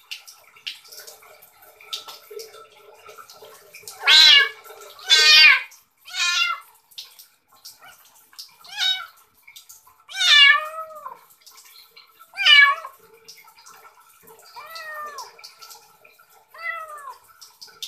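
Small kitten meowing repeatedly while being washed: about eight loud, falling cries, the loudest pair a few seconds in and more past the middle, fading to weaker calls near the end.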